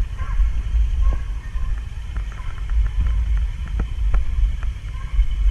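Vehicle driving, a steady low rumble with scattered light clicks and rattles over it.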